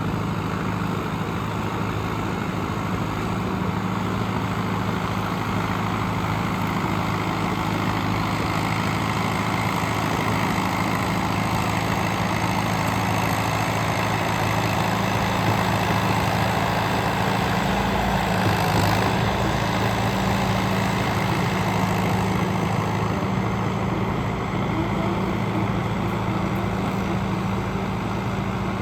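John Deere 450C bulldozer's diesel engine running steadily on a test run, its note swelling slightly partway through.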